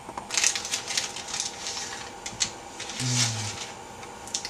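Candy wrapper crinkling in someone's hands: an irregular run of quick crackles, with a brief low hum about three seconds in.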